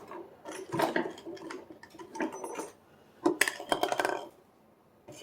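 Small metal padlock parts and tools clinking and rattling against each other as the lock is handled and taken apart. Several sharp clinks, some with a brief high ring, come thickest about three to four seconds in.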